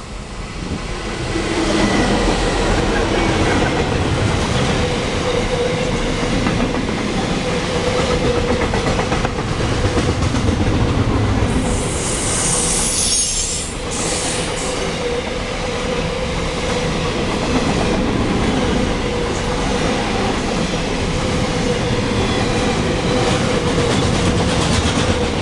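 Two QUBE 11 class diesel-electric freight locomotives pass close by, followed by a long container train rolling past with steady wheel-on-rail noise and a steady high tone. A brief high squeal comes about twelve seconds in.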